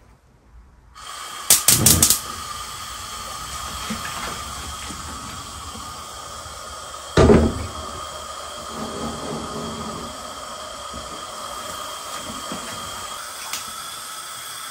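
Gas stove burner: a few sharp clicks about a second and a half in, then a steady hiss of the flame running on high. About seven seconds in, a single loud clank as the heavy aluminium stock pot is set down on the burner grate.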